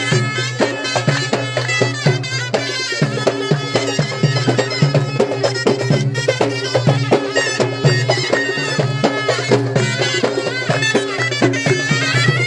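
Egyptian mizmar baladi, loud double-reed shawms, playing a wavering, ornamented folk melody over a steady low drone, with frequent drum beats throughout.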